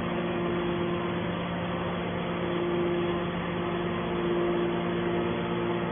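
Aluminium-can baler's motor running with a steady hum. A higher tone in it drops out about a second in and returns near the middle.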